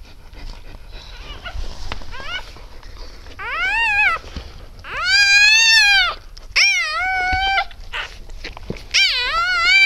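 Newborn Siberian husky puppy crying: a few faint squeaks about two seconds in, then four long, high-pitched cries, each rising and falling in pitch, after a stretch of soft rustling.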